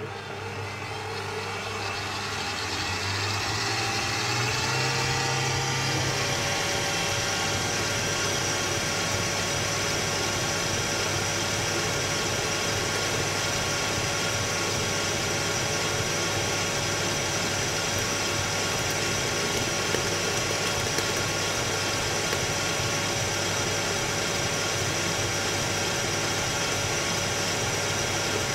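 Electric stand mixer switched on, its motor speeding up over the first few seconds and then running steadily as the beater works creamed butter-and-sugar cake batter in a glass bowl while beaten egg is added.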